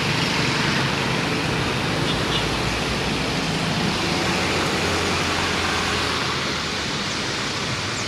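Road traffic going by close at hand: heavy trucks and motorcycles passing, with a steady low engine drone under a broad rushing hiss.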